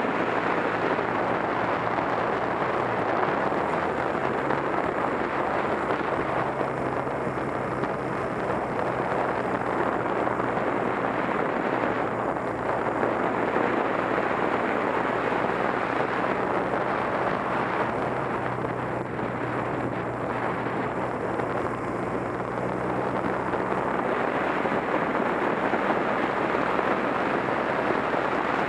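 Steady wind rush over the microphone of a moving motorcycle. Underneath it, the Honda Rebel 250's parallel-twin engine runs at a steady pitch while cruising.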